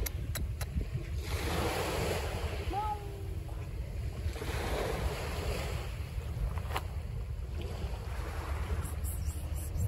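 Sea waves washing in, swelling and falling back about every three seconds, over a steady low rumble of wind buffeting the microphone.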